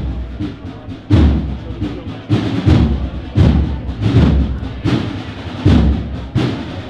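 Drum section of a cornet-and-drum band playing a steady march beat: a deep bass drum stroke about every three-quarters of a second, with snare drum strokes between them.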